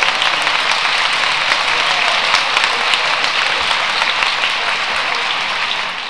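Audience applauding: dense, steady clapping from many hands, easing slightly near the end.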